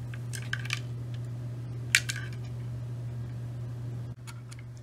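Light clicks and taps of hard plastic and metal as a water block is handled, a cluster of small ones about half a second in and a sharper one about two seconds in, over a steady low hum.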